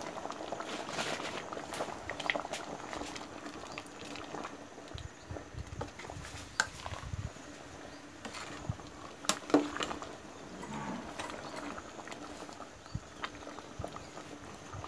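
Pot of bamboo-shoot curry simmering with a low bubbling, broken by a few sharp clicks and knocks as a metal ladle stirs in the aluminium pot.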